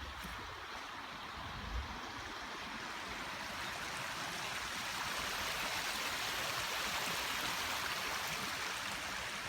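Water rushing steadily in a stream near a dam, a continuous hiss that grows louder over the first few seconds and then holds.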